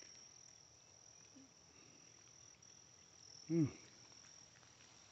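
Faint, steady high-pitched trill of insects, such as crickets, in the summer vegetation. About three and a half seconds in, a man makes one short vocal sound that falls in pitch.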